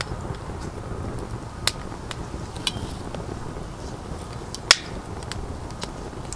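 Split firewood burning in a metal fire pit, crackling with scattered sharp pops over a low steady rush of flame, one pop a little past the middle much louder than the rest. The wood is not fully dry and is giving off a lot of smoke.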